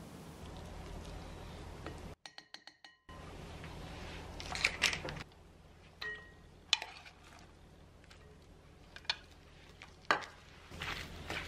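A plastic measuring spoon clinking and knocking against a mixing bowl as seasonings are spooned in. The clinks come singly, a second or so apart, then in a quicker cluster near the end, over a low steady hum.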